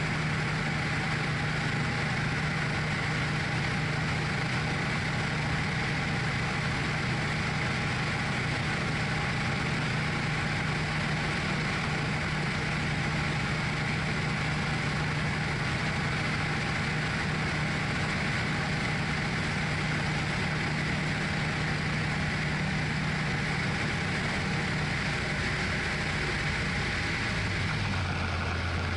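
The Tecnam P2002 Sierra's Rotax 912 four-cylinder engine and propeller drone steadily in flight, heard from inside the cockpit. Near the end the engine note drops to a lower pitch.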